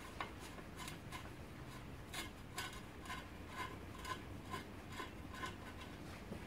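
Faint rubbing and light metal ticks, about two a second, as spokes are worked loose from a motorcycle wheel.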